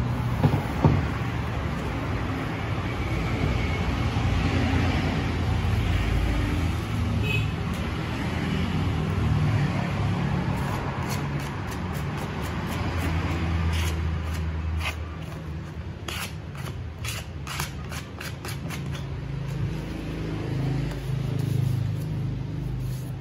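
Sheet of synthetic leather upholstery vinyl rustling and crinkling as it is pulled and smoothed by hand, with a run of sharp crackles about halfway through, over a steady low rumble.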